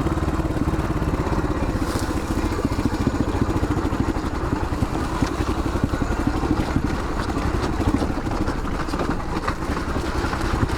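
1981 Yamaha XT500's air-cooled single-cylinder four-stroke engine running steadily while the bike is ridden, its firing pulses coming fast and even.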